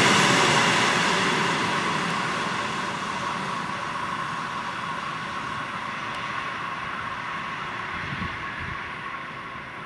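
Passenger train coaches rolling away along the track. The wheel and rail rumble fades steadily, with a steady high whine under it.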